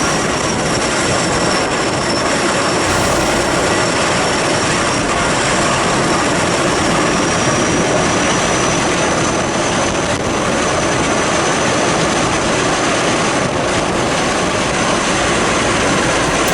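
Sikorsky S-64 Skycrane heavy-lift helicopter in flight: a loud, steady rush of rotor and turbine noise with a thin high turbine whine over it.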